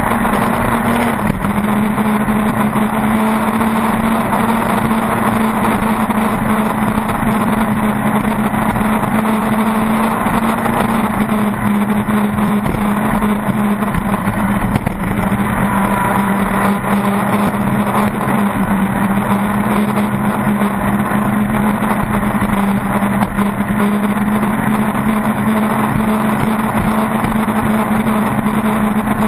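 Pro Stock circle-race boat's engine running hard at a steady high pitch, with wind and water noise rushing over the hull.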